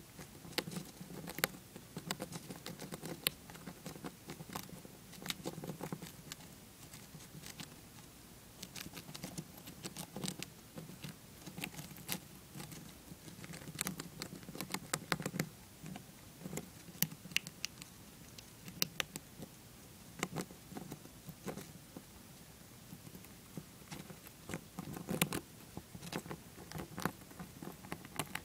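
Dwarf hamster chewing a shelled peanut: an irregular run of many small, sharp crunching clicks.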